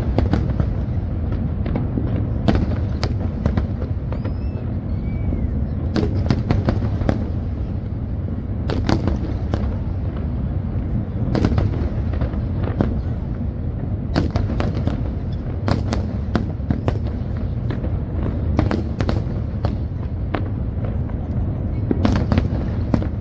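Fireworks going off without a break: a dense low rumble of booms with many sharp cracks scattered throughout.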